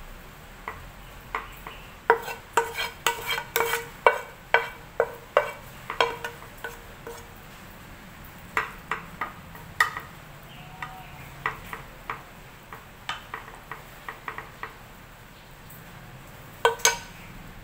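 Wooden spatula scraping and knocking stir-fried chicken and broccoli out of a wok into a glass food container, with irregular clinks and taps of spatula and pan against the glass. Two louder knocks come near the end.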